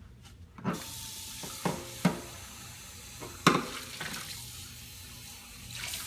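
Kitchen faucet running into a stainless steel sink, water splashing over a glass bowl being rinsed; the flow starts under a second in. Four knocks of dishes against each other or the sink, the loudest about three and a half seconds in.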